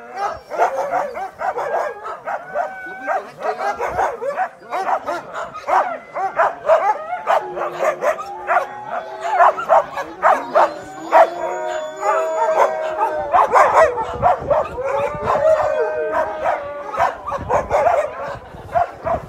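Many husky sled dogs barking and howling together, a chorus of overlapping barks with long, wavering, wolf-like howls that grow stronger through the middle.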